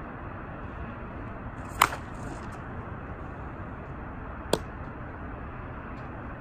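Monsta Athletics Daisy Cutter slowpitch softball bat striking pitched balls: two sharp cracks about two and a half seconds apart. The first is louder, with a brief hiss after it.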